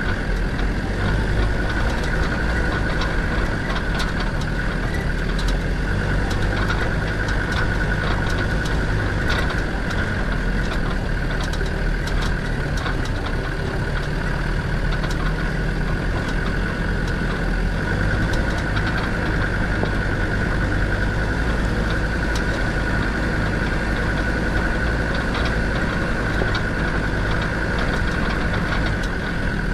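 Land Rover Defender 90's Td5 five-cylinder turbodiesel running steadily at low speed, crawling over a rocky track. A constant high whine sits over the engine note, with scattered clicks and knocks throughout.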